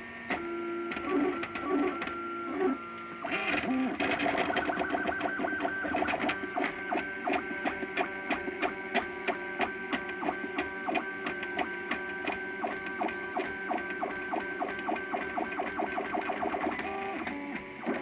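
MakerBot Thing-O-Matic 3D printer's stepper motors whining in steady pitched tones as the print head moves, laying down the last layers of a print. The pitch shifts several times in the first few seconds, then holds through a long stretch dotted with rapid ticks.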